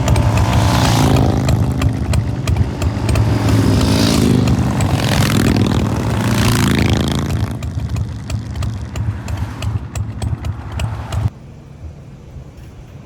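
Chopper motorcycles running at road speed, engines steady under rushing wind noise with passing swells; the sound falls off and then drops suddenly to a much quieter level about eleven seconds in.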